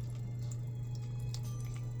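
Rain cloud humidifier dripping water drops into its basin: irregular small plinks and ticks, several a second, over a steady low hum.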